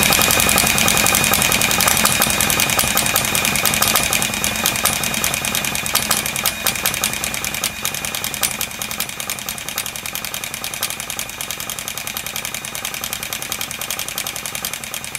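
A small nitro RC car glow engine running on a cold start, its idle screw just raised, slowly getting quieter. The owner suspects trouble with the fuel feed or the glow plug.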